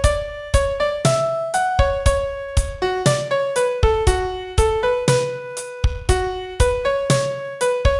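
Piano playing a single-line song melody at about two notes a second. Each note is struck and left to ring, with low bass notes under many of them.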